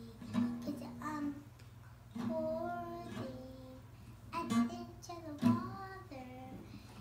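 A young girl singing a song, with strums of an acoustic guitar between and under her sung phrases.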